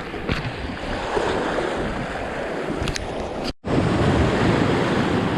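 Sea surf washing against the shore, with wind buffeting the microphone. The sound cuts out abruptly for a split second about three and a half seconds in, then resumes.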